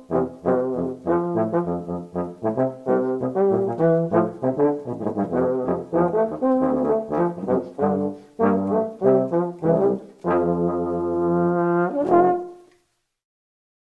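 Ophicleide and French C tuba playing a low brass duet: a run of short, detached notes in two parts, then a long held chord and one last short note, on which the music ends.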